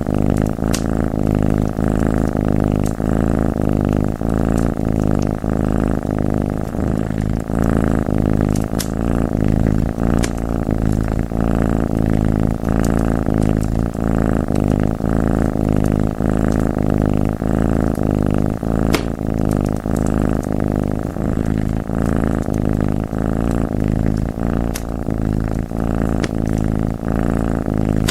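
A domestic cat purring loudly and steadily. A few sharp crackles from a wood fire come at scattered moments.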